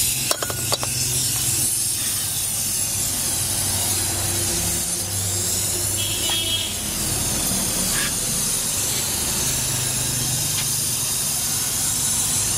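Gas brazing torch flame hissing steadily while it heats the copper tube stubs of a refrigerator compressor, with a low rumble underneath. A few sharp clicks come about half a second in.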